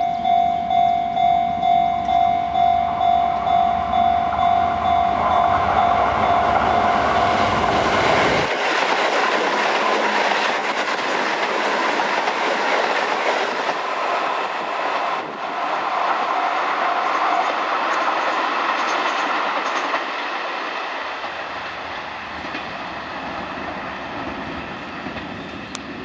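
A railway level-crossing warning bell rings in quick repeated dings. About eight seconds in, a Shin-Keisei 8800-series electric commuter train runs past on the tracks with a loud rush of wheel and running noise, which tapers off as the train moves away near the end.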